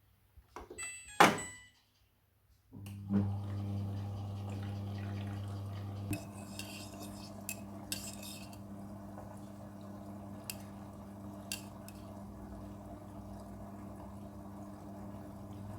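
A Midea front-loading washing machine: a few clicks and a sharp knock about a second in, then, after a short silence, the machine starts with a steady hum that runs on, broken by scattered clicks and a brief hiss.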